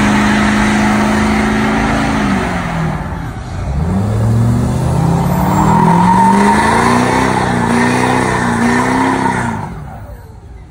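Pickup trucks doing burnouts. One engine is held at high revs with tyres spinning, then drops off about two seconds in. A second truck's engine then revs up, climbing steadily with squealing tyres, and cuts off near the end.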